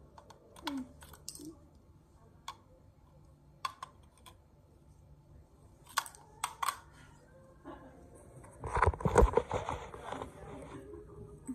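Hard plastic toy figures clacking against each other and tapping on a tile floor: scattered sharp clicks, then a louder flurry of knocking and rubbing about nine seconds in.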